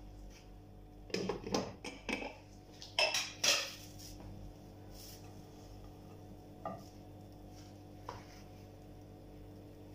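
A frying pan and kitchen utensils clattering on a gas stove: two short runs of clinks and knocks about one and three seconds in, then two light taps as a pancake is worked with a spatula, over a low steady hum.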